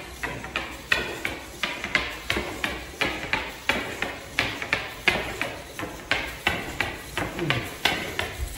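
SunFounder PiDog robot dog walking forward: its servo-driven aluminium legs tap the hard table tennis table in a steady rhythm of sharp clicks, about three a second.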